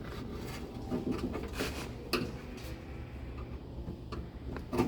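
Light rubbing and a few soft knocks from hand work on a car door's window hardware.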